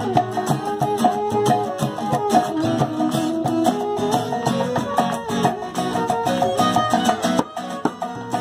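Live folk ensemble playing: violin and bamboo flute carrying the melody over a hand-played barrel drum and strummed acoustic guitar. The music dips briefly about seven and a half seconds in.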